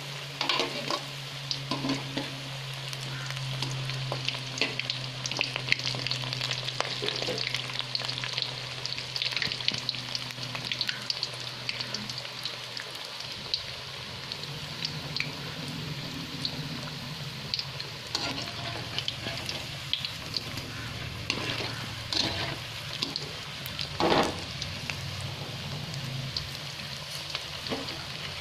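Moringa-leaf bondas deep-frying in a kadai of hot oil: a steady sizzle full of small crackles and pops. A wire spider skimmer works the fritters, with occasional metal clicks, the loudest about three-quarters of the way through.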